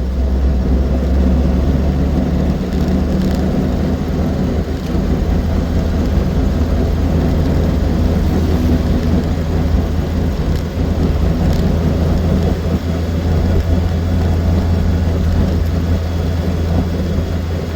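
Austin Seven's small four-cylinder side-valve engine running at road speed, with drivetrain and road noise, a steady low rumble.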